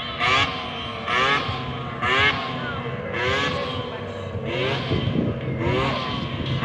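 Snowmobile engine running with its throttle blipped about once a second, each blip a short rising rev before it drops back.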